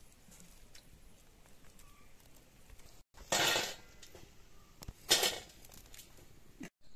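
Two short clattering clinks of metal against a steel plate, the first about three seconds in and the second about two seconds later.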